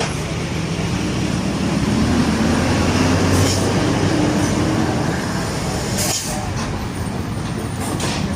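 Heavy diesel truck engine running close by: a deep steady drone whose pitch rises for a couple of seconds in the middle, with a few short hisses.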